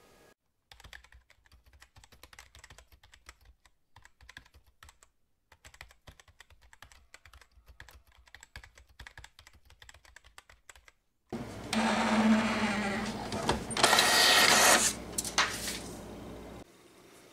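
Light, irregular computer keyboard and mouse clicking for about ten seconds, then a home printer starts up and runs loudly for about five seconds, printing a photo page. It gets louder in the middle and stops shortly before the end.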